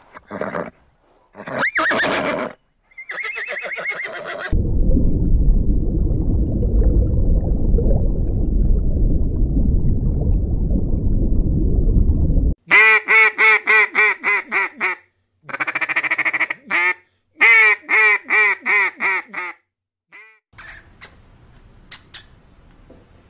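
A string of animal sounds. First a horse neighing for about four seconds, then a steady low rushing noise for about eight seconds. After that come runs of rapid, pitched calls in groups of one to two seconds, and near the end faint squeaks and clicks.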